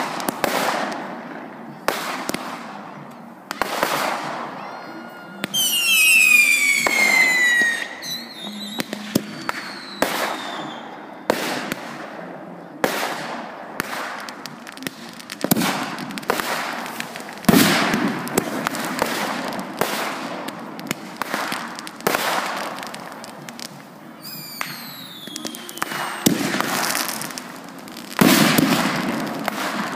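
Aerial fireworks going off in quick succession: sharp bangs and crackling reports about once a second. Twice, about six seconds in and again near 25 s, whistling effects glide down in pitch.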